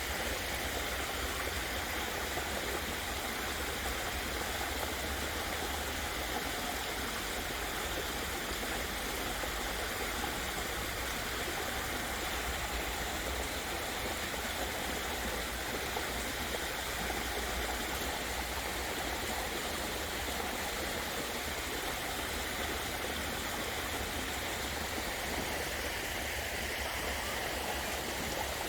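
Waterfall: water pouring and running steadily, an unbroken rushing noise that stays even throughout.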